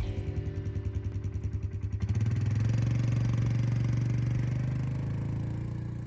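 ATV engine running while pulling through mud. It pulses at first, opens up louder about two seconds in, then fades steadily as the machine drives away.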